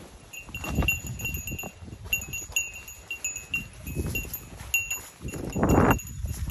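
A small metal bell jingling in short, irregular rings, several a second, over low rumbling noise, with a louder rush of noise near the end.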